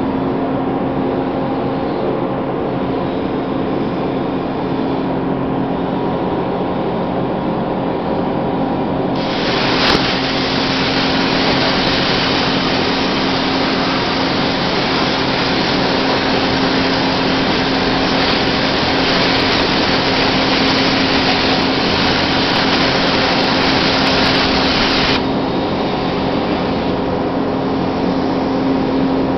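Steady machine hum with a constant tone from the CNC plasma cutting table. About nine seconds in, the Hypertherm Powermax 1650 plasma torch fires with a sharp click and a loud, even hiss while it cuts through metal plate. The hiss cuts off abruptly about 25 seconds in, when the cut is finished.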